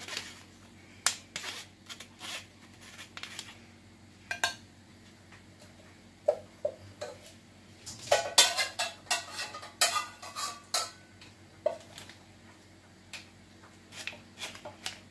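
A plastic spatula scraping and tapping against a strainer and a glass baking dish while cooked penne is spread out, with scattered clicks and clatters that are busiest past the middle.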